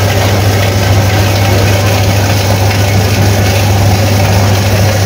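Plastic bottle shredder machine running with a steady low hum, working through a bottle that has been fed in.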